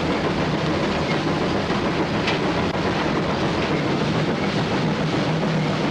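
Steady running din inside the cab of a 2-8-0 steam locomotive as it moves along the track: machinery noise and wheel-on-rail clatter, with a brief sharp sound about two seconds in.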